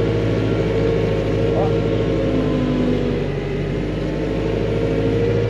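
Arbos 3055 tractor's diesel engine running steadily under load, heard from inside the cab, while it pulls a disc harrow through wet soil.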